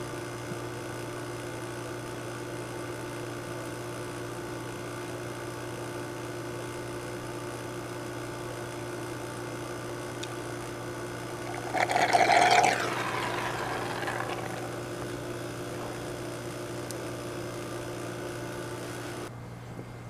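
Vacuum pump running with a steady hum while it draws fresh oil through a tube into a sealed fridge compressor. About twelve seconds in, a louder rushing slurp lasts about a second and fades, as air follows the last of the oil up the tube.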